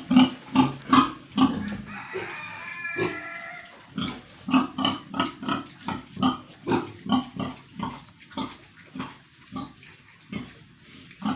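Pigs grunting in a quick, even series, about two to three grunts a second, with a higher drawn-out squeal about two seconds in before the grunting picks up again.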